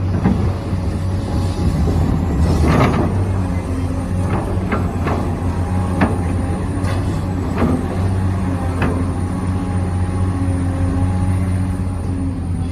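Radio-controlled construction models at work: a steady low motor hum with a constant tone above it, and scattered sharp clicks and scrapes of the machines and the material they move.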